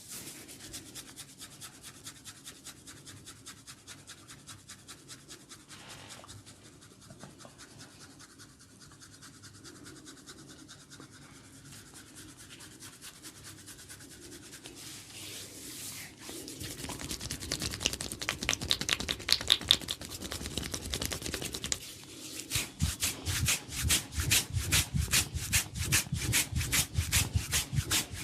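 Hands rubbing and scratching an oiled scalp and hair in quick, regular scrubbing strokes, getting louder about two-thirds of the way through.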